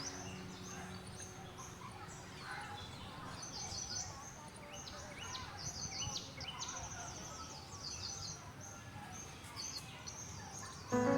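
Small songbirds chirping repeatedly in short, high, quick chirps and trills over a soft outdoor background. Background music ends at the very start and comes back in just before the end.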